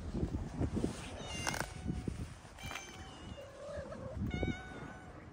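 Stray cats meowing: four short, pitched meows about a second apart, one of them lower and wavering.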